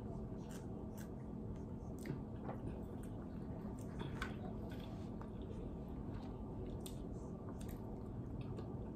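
A person chewing food and smacking their lips, scattered short wet clicks of mouth noise over a steady low hum.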